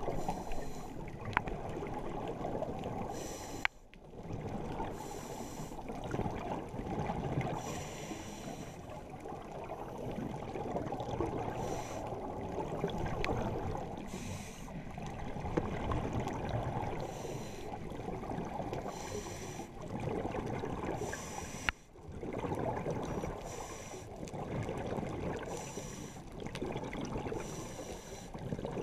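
Underwater breathing through a scuba regulator: a short hiss at each inhale about every two to three seconds, over a steady rush and gurgle of exhaled bubbles.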